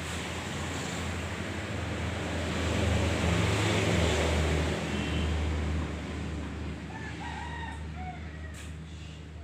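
A low rumble with a broad hiss swells to a peak about three to four seconds in and then fades, as of a passing motor vehicle. Near the end a rooster crows.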